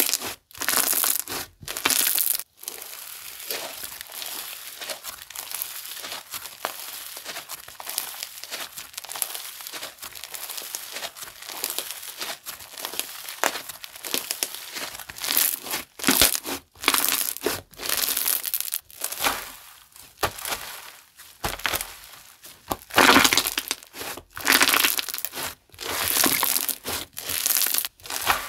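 Micro snow slime being squished and stretched by hand, making crisp crackling, crinkling sounds in irregular bursts, louder a little past halfway and again near the end.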